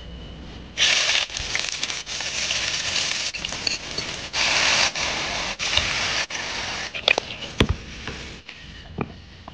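Green chilies, garlic and pork ribs sizzling in hot oil in a wok, in several short stretches that start and stop abruptly. Near the end the sizzle dies down and a metal ladle knocks and scrapes against the wok a few times.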